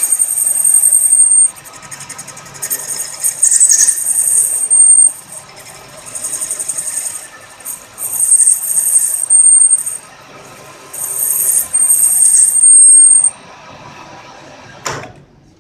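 Lathe cutting tool squealing at a high pitch as it turns off a damaged thread, in about five bursts that stop about thirteen seconds in. A single sharp knock follows near the end.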